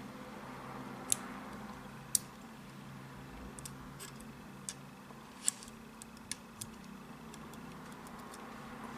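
Small, sharp metallic clicks and ticks of steel revolver parts and tools being handled during disassembly: about half a dozen louder clicks at uneven intervals with fainter ticks between, over a faint steady hum.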